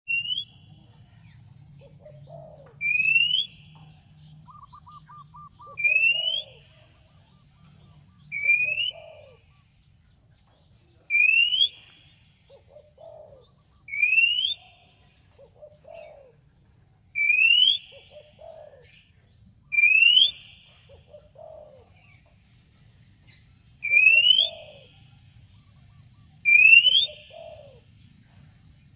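Oriental magpie-robin (kacer) giving a short, rising whistled call over and over, about every three seconds. It is the call that challenges rival magpie-robins and sets them calling back.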